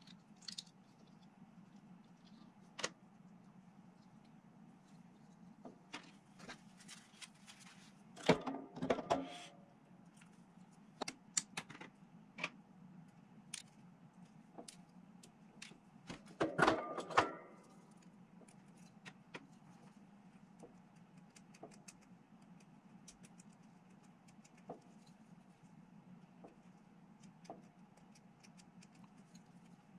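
Small clicks and taps of plastic miniature parts being handled and fitted together, with two short bursts of rattling clatter about eight and sixteen seconds in, over a faint steady hum.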